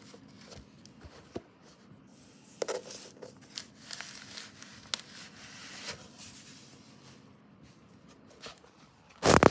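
Record packaging being handled by hand: paper and plastic rustling and crinkling, with scattered light taps and clicks, and a loud brief noise close to the microphone near the end.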